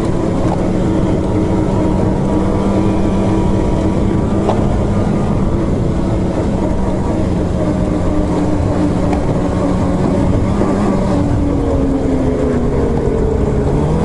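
Two-stroke snowmobile engine, a Polaris Switchback Assault, running steadily under way. Its pitch drops about eleven seconds in as the throttle eases, then climbs again near the end as it speeds back up.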